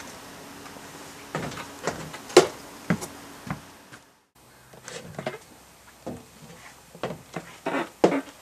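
Knocks and clunks of a travel trailer's entry door being opened and someone stepping up into the trailer, about two a second. The sound cuts out briefly about four seconds in, then scattered knocks and taps follow, louder near the end.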